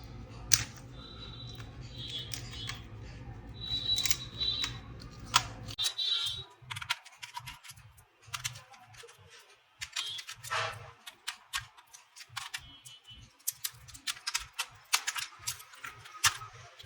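Small sharp clicks and taps of hands and tools working on a laptop case as it is opened and taken apart. A steady low hum underlies the first six seconds and stops suddenly.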